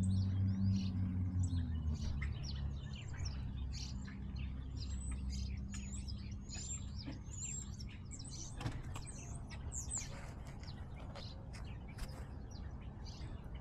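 Small birds chirping, many short high calls in quick succession, some with quick slurred glides. A low hum underneath fades out over the first couple of seconds.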